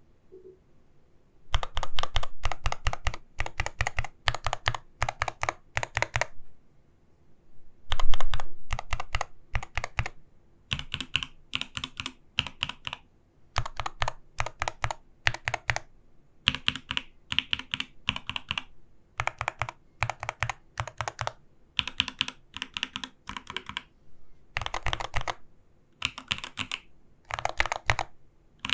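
Typing on an Arbiter Studio Polar gaming keyboard: rapid runs of keystrokes in bursts of about a second, with short pauses between them and a longer pause about a third of the way in.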